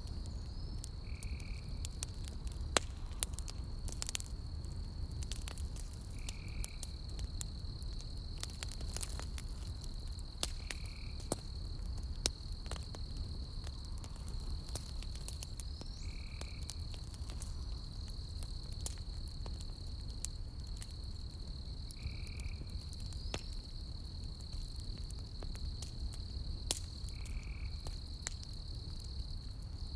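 Campfire burning with irregular sharp crackles and pops over a low rumble. Behind it, insects make a steady high chirring, and a short call repeats about every five seconds.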